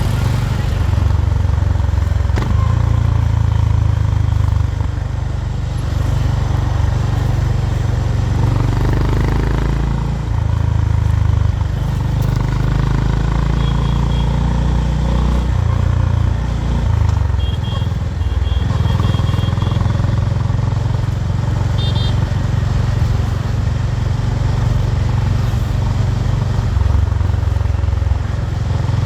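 Honda H'ness CB350's 348 cc air-cooled single-cylinder engine and exhaust while riding, with a deep, steady note that rises and falls several times with the throttle.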